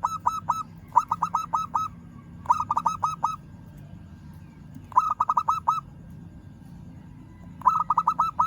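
Zebra dove (perkutut) cooing in short phrases of quick repeated notes, a phrase every couple of seconds, five in all. It is the call used to challenge a rival.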